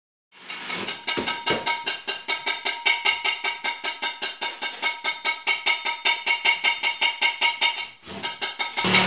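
Percussive music: a fast, even beat of sharp strikes, about five a second, over a steady ringing tone. It starts suddenly and breaks off briefly near the end before resuming.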